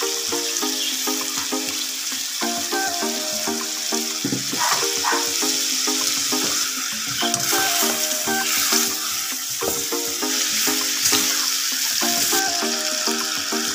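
Instrumental background music with a steady repeating melody of short notes, over a steady sizzling hiss from the pot.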